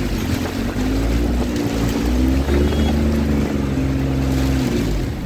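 A motor vehicle's engine running, its pitch rising and falling slowly, over a heavy low rumble of wind on the microphone.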